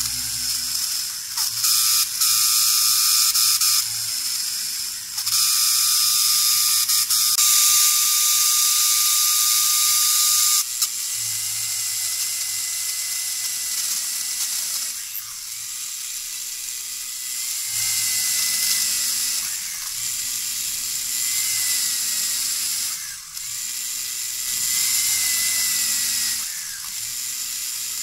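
Small DC motor with a brass collet chuck spinning a fine drill bit, whirring as it bores into a strip of wood. Its high whine rises and falls in level several times, loudest in the first third.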